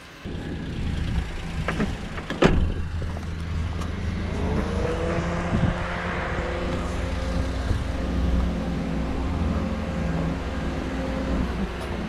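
A motor vehicle's engine running close by with a steady low hum. Its pitch climbs a little about four seconds in and then holds. Two sharp knocks come about two seconds in, the second louder.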